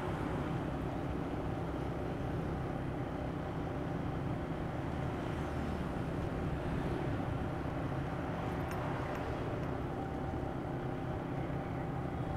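A motorbike engine running steadily at cruising speed, with road and traffic noise.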